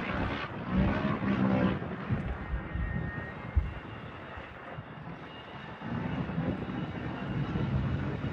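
Turbocharged UTV race engines, a steady mechanical drone that swells about a second in, fades, and builds again near the end as machines pass. There is a single sharp knock near the middle.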